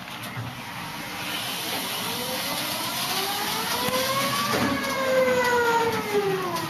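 Electric motor of a Magaziner EK1500 very narrow aisle turret truck whining, rising in pitch for about three seconds and then falling away near the end.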